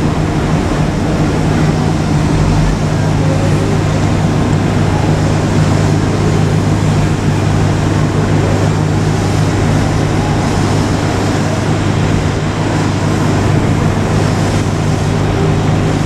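A steady low engine hum under a constant rush of noise.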